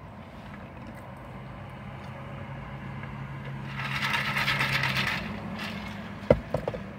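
A drink sucked up through the straw of a plastic tumbler, a hissing sip lasting about a second and a half, followed by a single sharp knock as the cup is set down. A low steady hum runs underneath and stops about five seconds in.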